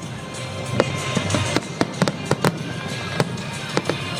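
Fireworks display going off in many sharp, irregular bangs and crackles, several a second, with music playing underneath.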